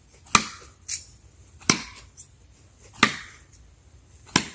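Throwing knives thunking into a target one after another, four sharp strikes about a second and a half apart, with a fainter knock between the first two.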